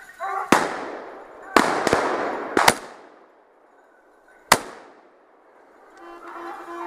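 Hunting gunfire: about six shots in four seconds, some in quick pairs, each echoing off through the trees. Near the end a steady droning tone sets in and cuts off suddenly.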